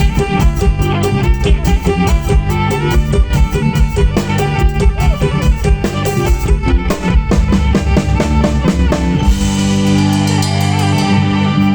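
A live band playing Kantrum-style music, drum kit beating under fiddle and keyboard lines. About nine seconds in the drumming stops and a held organ chord rings on.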